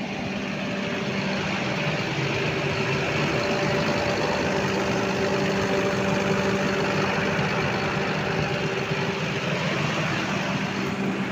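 John Deere 7930 tractor's six-cylinder diesel engine running steadily, heard up close, with a steady hum at several pitches over a broad mechanical noise.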